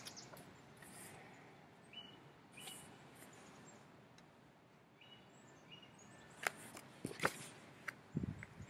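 Quiet outdoor background with a bird calling twice, each call two short high notes. Near the end come a few light clicks from the picture book being handled.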